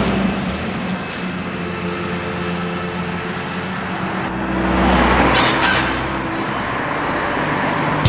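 Road traffic: a box lorry passes close by and drives off, and another vehicle swells past about five seconds in.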